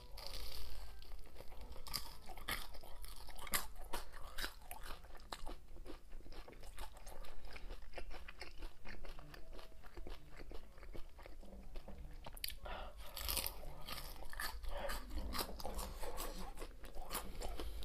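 Close-miked crunching and chewing of crispy deep-fried battered pork (guo bao rou), the crackly batter breaking with each bite. The crunches come thickest and loudest about two-thirds of the way through.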